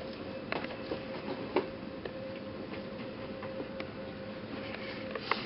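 A steady electrical hum from hospital equipment, with scattered light clicks and taps of gloved hands handling things.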